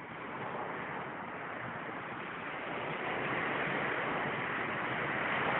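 Steady wash of small waves on a calm sea breaking along the beach, slowly growing louder toward the end.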